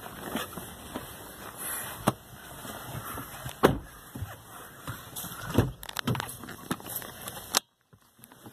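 Car rolling slowly over stone paving, heard from inside the cabin: a steady low road noise with irregular knocks and rattles. The sound cuts out briefly near the end.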